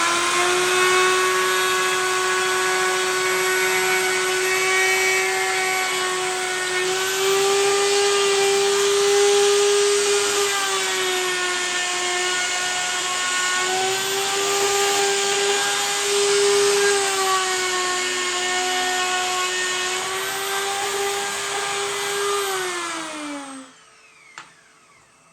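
Electric router running at full speed, cutting the recesses for the worktop connector bolts into a kitchen worktop. Its high, steady motor tone sags a little in pitch now and then as it cuts, and it runs down about 23 seconds in.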